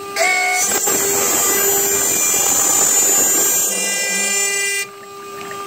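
CNC router spindle with a water-cooled bit cutting carbon fiber: a steady whine, with a loud cutting noise that starts a moment in and stops suddenly just before the end.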